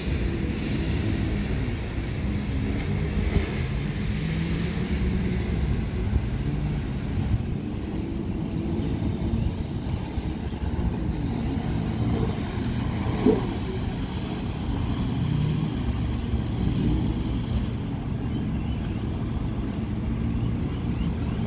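Jet ski engines whining out on the river, their pitch rising and falling, over a steady low rumble. A brief sharp knock about halfway through.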